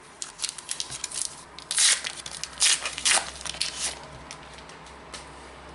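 A trading-card pack wrapper being torn open and crinkled: a run of short crackling rips over the first four seconds, loudest about two and three seconds in.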